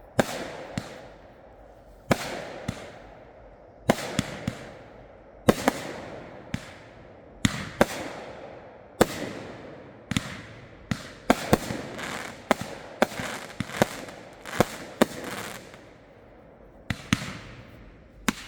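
Consumer 1.4G fireworks going off. Sharp bangs come about one to three a second, each trailing a hiss that fades over about a second, with a short lull about sixteen seconds in before they resume.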